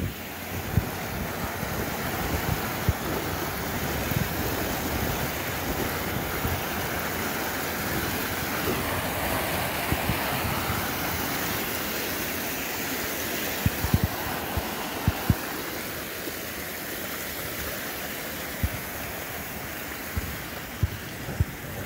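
Water cascading over the wall of a fountain pool, a steady splashing rush that swells around the middle. Wind buffets the microphone, with a few short low thumps in the second half.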